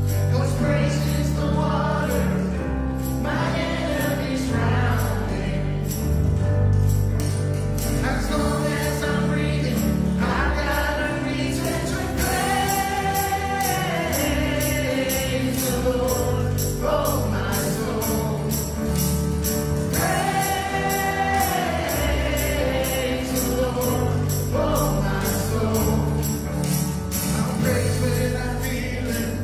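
A contemporary worship band playing an upbeat praise song with voices singing, including two long held notes. Jingling percussion keeps a steady beat throughout.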